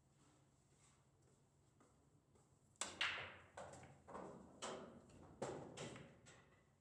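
Pool balls clicking against each other: a quick run of about seven sharp clacks, starting about three seconds in, after a quiet stretch.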